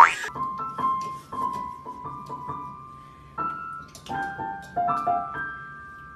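A brief loud swish at the very start, then a piano sounding sparse high notes and small clusters at irregular intervals, pressed by a cat's paws on the treble keys.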